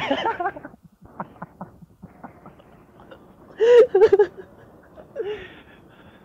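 A man laughing in a short run of loud bursts about four seconds in, with a brief voice sound at the start and a few light knocks.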